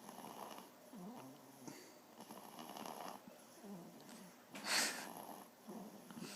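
Faint, repeated snoring breaths from a 10-week-old asleep, one every second or so, with one louder, hissier sound about three quarters of the way through.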